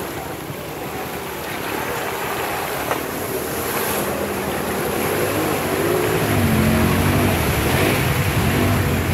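Honda Pioneer 1000-5 side-by-side's engine pulling hard as the machine ploughs through a mud hole, with water and mud splashing and sloshing around the wheels. The sound grows louder, and in the second half the engine's revs rise and fall.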